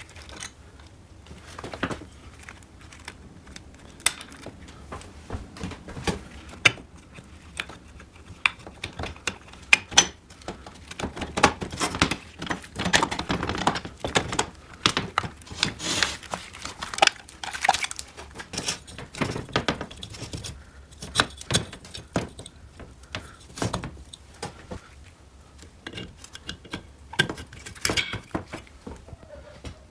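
Metal engine parts clinking, tapping and scraping against the aluminium crankcase of a Riga 12 engine as it is assembled by hand: irregular light clicks and rattles, busiest midway through.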